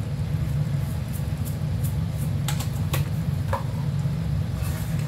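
Pan of mung bean stew boiling on a gas stove, a few short pops over a steady low hum.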